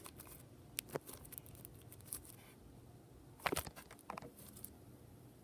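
Slime being handled, with faint scattered crackling clicks and small pops and a louder cluster of pops about three and a half seconds in.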